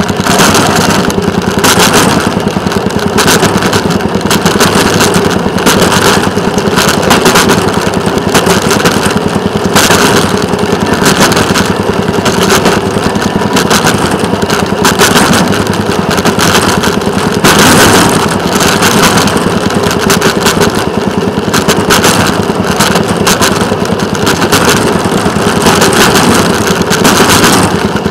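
Small engine of a rail motorcar running steadily as it travels along the track, under a steady rushing noise.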